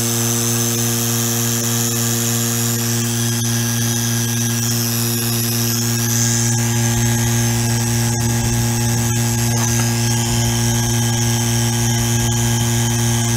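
Pittsburgh 3 CFM two-stage rotary-vane vacuum pump running steadily, its electric motor giving a strong, even hum, with a little more low rumble from about halfway through. It is being run to work fresh Royal Purple oil through its plastic-vaned pump stages.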